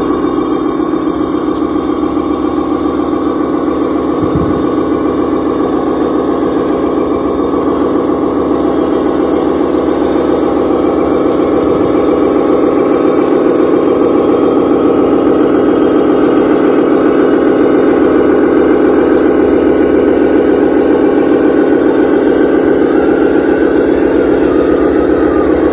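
Engine running steadily with a fast, even pulse, growing slightly louder about ten seconds in.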